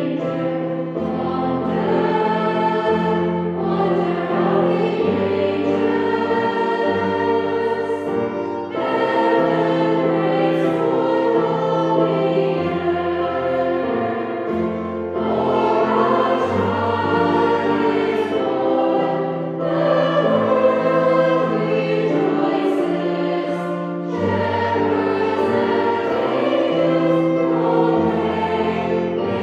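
Women's choir singing a Christmas carol, accompanied by keyboard, violin and acoustic guitar, with held low bass notes beneath the voices.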